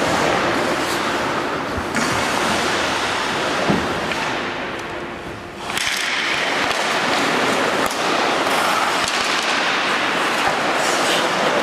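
Ice hockey play on a rink: a steady scraping hiss of skates cutting the ice, broken by a few sharp knocks of sticks and puck.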